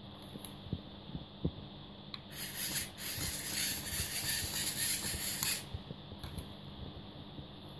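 Small geared electric motor of a DIY spider robot kit, run from a one-channel RC receiver, driving the robot's legs. It starts about two seconds in, runs for about three seconds with a whirring buzz, and cuts off suddenly. A few light clicks come before and after.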